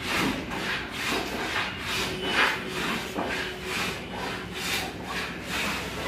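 Repeated back-and-forth rubbing strokes on wood, about two a second, with a rasping, sawing quality.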